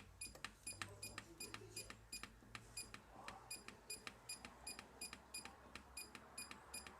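Control panel of a Hoover Nextra HNC770 condenser dryer giving an even run of short, faint click-beeps, about three a second, as its settings are stepped through, such as the delay-start timer counting up its hours.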